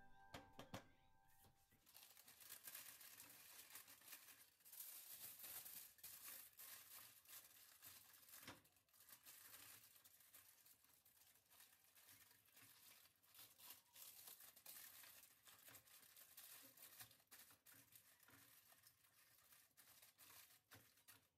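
Faint crinkling and crackling of aluminium foil being handled, with many small irregular clicks.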